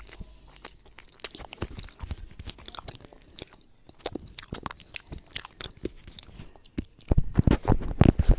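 Close crunching and crackling: a quick run of sharp crackles that turns louder and heavier about seven seconds in.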